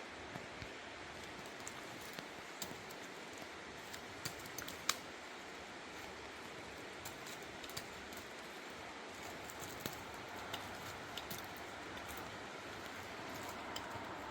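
Scattered small clicks and light clinks, irregular and sharpest about five seconds in, over a faint steady hiss of open air.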